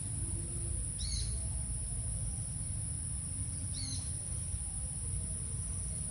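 Insects droning in a steady, high, even whine, with a bird giving a short chirp twice, about a second in and again about four seconds in, over a low rumble.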